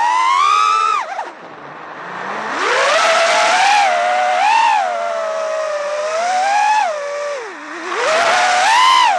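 Brushless motors and propellers of an iFlight Nazgul5 5-inch FPV quadcopter whining as it flies freestyle, heard from on board. The pitch rises and falls with the throttle: a high whine cuts off sharply about a second in, climbs back, swoops up and down, and surges again near the end.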